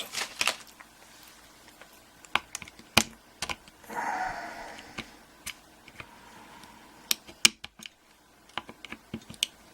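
Pliers working at a euro cylinder lock's retaining circlip: scattered sharp metallic clicks and taps, the loudest about three and seven and a half seconds in, with a short scraping rustle about four seconds in.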